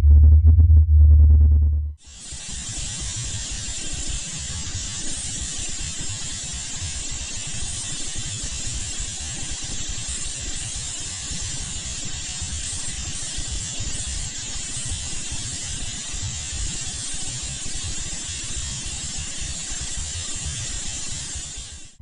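A loud, deep synthesized drone that stops about two seconds in, followed by a steady hiss of static with a light low crackle, a 'space sound' track that fades out near the end.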